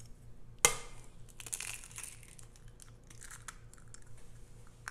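An egg knocked sharply once on the rim of a glass mixing bowl, then the shell crackling as it is broken open.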